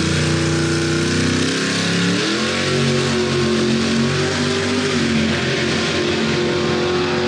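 A drag car's engine running hard as the car launches and pulls away down the strip. Its pitch climbs about two seconds in and then holds high.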